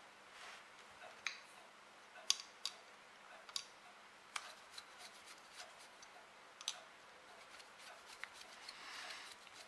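Scattered light metallic clicks and taps from handling an Uberti Colt 1860 Army replica revolver as its wooden grip is fitted to the frame and a screwdriver is set to the grip screw.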